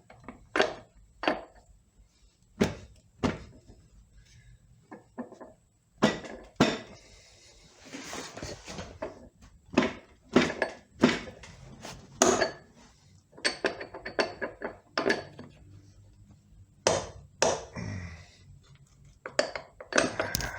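Light hammer taps and knocks, irregular and sharp, on the stuck front pump of a C6 automatic transmission as it is worked loose, with a brief scrape about eight seconds in.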